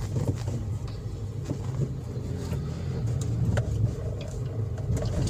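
Toyota Vios engine and road noise heard from inside the cabin while driving: a steady low rumble with a few faint clicks.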